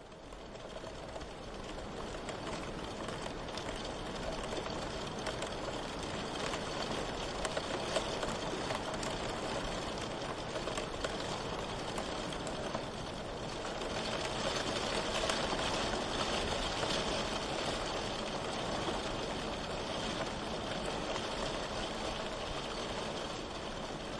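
Steady rain falling, an even wash of drops that fades in over the first two seconds and then holds steady.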